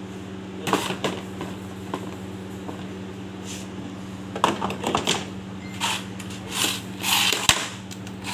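Hard plastic dish racks being handled and moved: scattered knocks, clicks and short rattles of plastic, busiest in the second half with a sharp click near the end, over a steady low hum.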